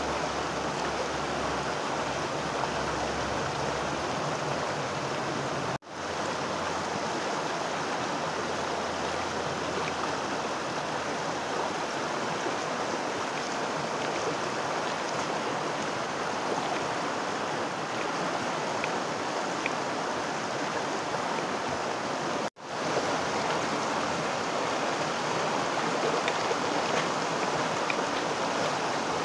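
Creek water flowing and rushing steadily, cut off very briefly twice.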